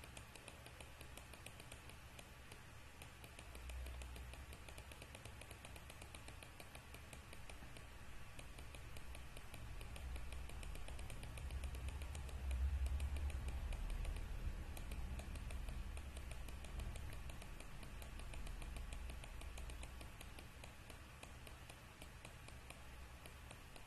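Quiet room tone with a low rumble that swells and fades a couple of times, and faint, rapid light clicking throughout.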